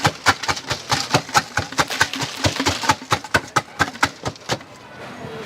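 Rapid rhythmic knocking from drink-making at a tea stall, about five sharp strikes a second, stopping abruptly about four and a half seconds in.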